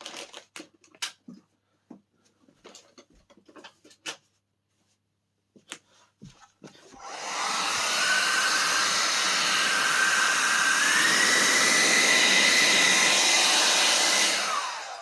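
A few clicks and handling knocks, then a Xiaomi Ionic H300 hair dryer is switched on about halfway through and blows steadily, its fan motor whining. The whine steps up in pitch partway through, and the dryer is switched off near the end, its whine falling away.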